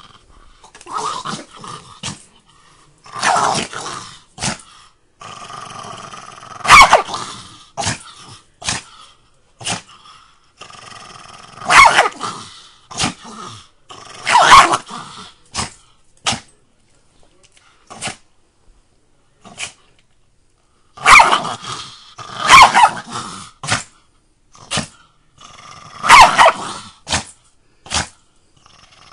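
A small dog snarling and growling in repeated bouts a couple of seconds apart, with short sharp barks between them. It goes quiet for a few seconds about two-thirds of the way through.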